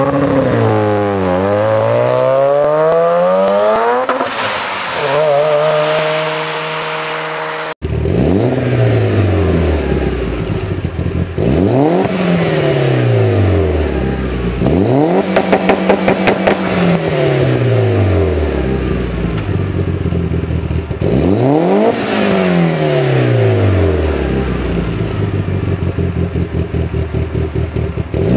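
Mazda RX-7 FD's twin-turbo rotary engine revving as the car drives past, its note dipping and then climbing before holding steady. About eight seconds in it cuts suddenly to a Mitsubishi Lancer Evolution VIII's turbocharged four-cylinder, revved again and again while standing. Each rev rises and falls, with a rapid stuttering at the top of one rev around the middle.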